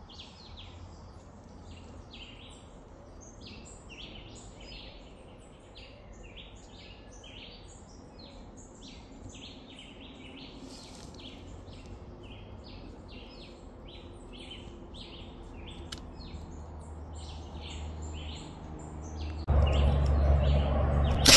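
Birds chirping with many short, quick calls over a steady background hiss. Near the end a louder low rumble sets in, and a single sharp crack comes at the very end.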